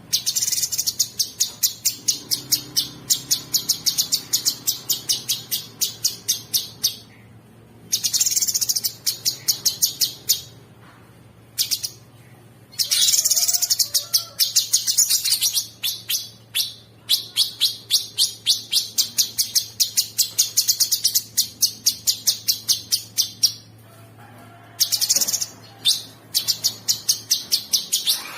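Cucak sungkok singing: loud, high-pitched song of fast, rapidly repeated harsh notes, delivered in phrases of a few seconds broken by short pauses.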